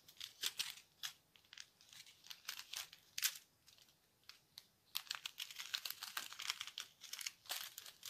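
Small clear plastic bags of resin diamond-painting drills crinkling and crackling as they are handled and sorted by hand, in quick irregular bursts that thin out around the middle and turn busy again in the last three seconds.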